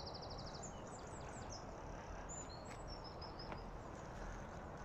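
Small birds chirping over a steady outdoor background hiss, with a quick high trill at the start and scattered short high chirps after.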